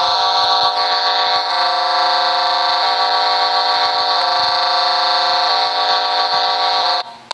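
Emergency alert system alarm tone: a loud, buzzy multi-tone signal switching back and forth between two tone patterns about every second and a third, cutting off suddenly near the end.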